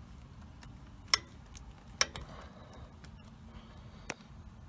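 Sharp clicks of pliers and a spring hose clamp as a vacuum hose is forced onto a turbocharger's compressor housing nipple: two loud clicks about a second apart, then a weaker one near the end, with a few faint ticks between.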